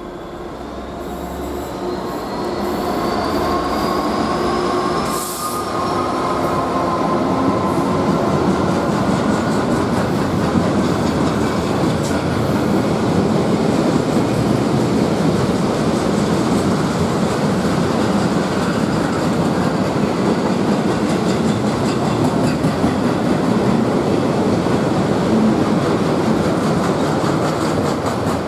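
A Class 66 diesel locomotive passes, hauling a long freight of loaded steel coil wagons. The sound grows louder over the first few seconds as the locomotive approaches, with a rising whine. It then settles into the steady rumble and clatter of the wagons' wheels on the rails.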